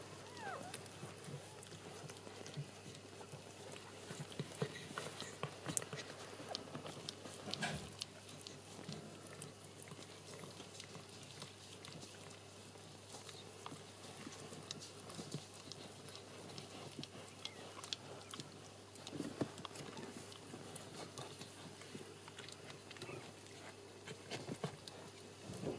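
A Shetland sheepdog mother licking and nosing her newborn puppy: quiet, irregular wet licking and snuffling with small clicks and towel rustling.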